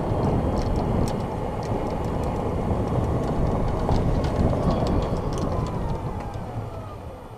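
A golf cart driving along a paved cart path, heard from a camera mounted on the cart: steady rumble and rattle from the ride, with scattered clicks. In the second half a faint whine slides down in pitch and the noise eases as the cart slows.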